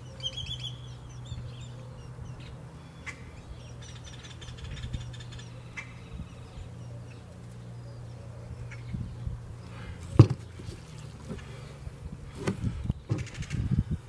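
Seasoning shaker rattling in short shakes over steaks on a plastic cutting board, with a single loud knock about ten seconds in. A bird chirps just after the start, over a steady low hum.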